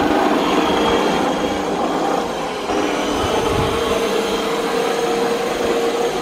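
Makita MLM-2851 reel lawn mower running steadily as it mows, a constant machine noise with a held tone in it. It carries an abnormal noise that the owner thinks comes from the reel blade shaft bearing.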